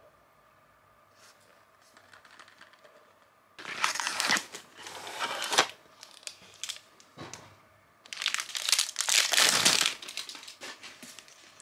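Aluminium-foil wrapper on a box of Soan Papdi crinkling as hands handle it and pull at it, in two spells of loud crinkling a few seconds apart.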